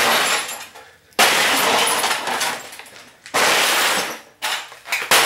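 A television being smashed: three heavy blows about two seconds apart, each followed by breaking glass and clatter that fades out, with a lighter knock in between.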